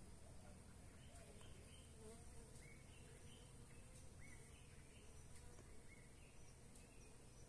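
Near silence with the faint buzzing of jataí stingless bees (Tetragonisca angustula) moving about their opened nest, and a few faint short chirps every second or so.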